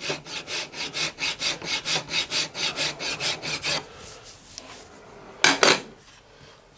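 Hand file rasping across soft aluminium in quick, even strokes, about four a second, stopping about four seconds in. It files easily because the metal is soft. Near the end comes one short, louder rubbing sound.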